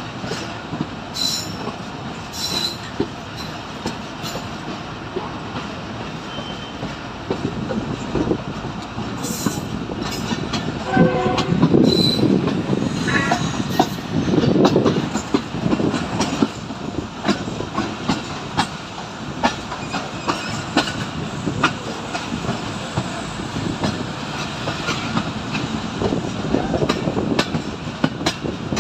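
Subak Raftar Express railcar train running at speed, heard from an open coach door: a steady rumble with the clickety-clack of wheels over rail joints, growing louder for a few seconds around the middle. A brief horn sounds about eleven seconds in.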